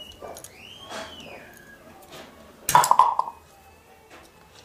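Parts being handled while fitting attachments to an engine: a short rising squeak, then a brief loud clatter about three seconds in.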